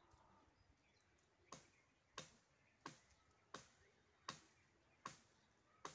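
Faint, regular chopping: a blade striking a wood-apple tree branch, about seven sharp blows roughly two-thirds of a second apart, starting about a second and a half in.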